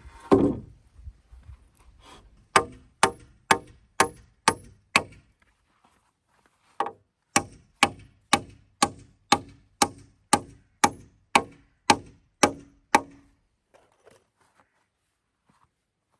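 A tool striking wood in steady blows: a heavier thud just after the start, then six sharp strikes about two a second, a short pause, and about thirteen more at the same pace, each ringing briefly.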